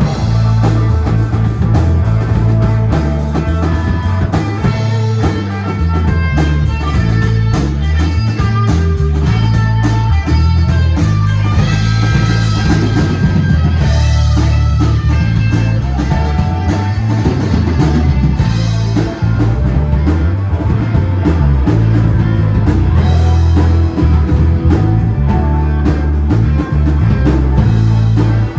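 Rock music played by a band: guitar over a prominent bass line and a drum kit, running steadily and loud.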